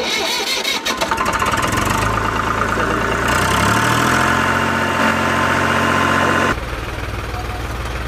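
Tractor engine sound effect: it starts with a clatter, rises in pitch about three and a half seconds in, then runs steadily. About six and a half seconds in it cuts abruptly to a quieter, steady engine running.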